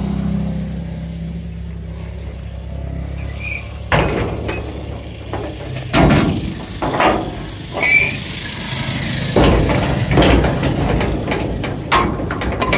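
Rusty slide-bolt latch of a steel gate worked by hand: a run of metal knocks and scrapes as the bent rebar handle and bolt are moved, with a brief squeak about eight seconds in. A steady low hum fills the first few seconds.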